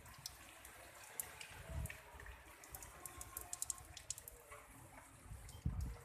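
Water splashing and dripping in small irregular splashes with many sharp ticks while a caged black-naped oriole is bathed, with two dull thumps, about two seconds in and near the end.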